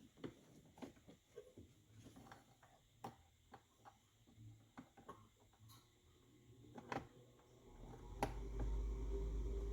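Small scattered clicks and rustles of plastic wiring-harness connectors being handled and plugged in under a pickup's dashboard. About eight seconds in, a steady low hum starts and becomes the loudest sound.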